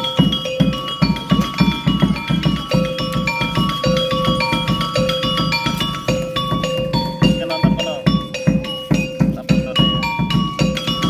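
Gamelan-style accompaniment music for a monkey street show: ringing metallophone notes playing a repeating melody over a fast, steady drum beat.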